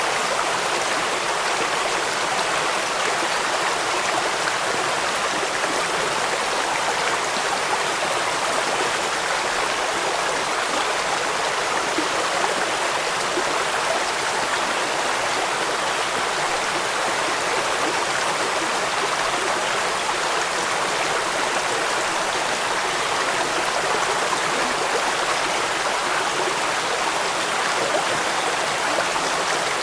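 A stream of water running over rocks: a steady, even rushing that does not change.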